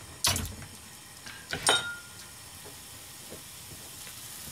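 Bacon pieces frying gently in sesame oil in a frying pan, a faint steady sizzle as the fat starts to render. It is broken twice by a sharp clack, the second with a short ring.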